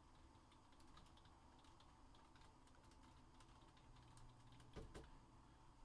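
Faint typing on a computer keyboard: scattered soft key clicks, with one short low thump just before the five-second mark.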